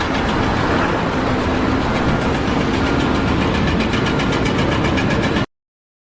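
Steady, loud engine or machinery noise that cuts off abruptly about five and a half seconds in, followed by a second of dead silence.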